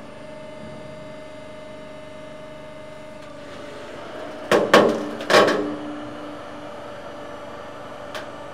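Hydraulic press running with a steady hum while it squeezes a stack of paper frozen in liquid nitrogen. About four and a half to five and a half seconds in come three sharp cracks as the frozen paper starts to give under the load, followed by a short ringing tone.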